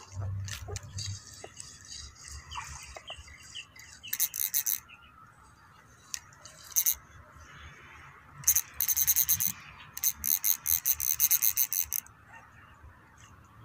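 Fishing reel on a pen rod clicking in rapid bursts while a hooked fish is reeled up out of the canal. The bursts come thicker from about halfway through and stop abruptly near the end as the fish is lifted clear of the water.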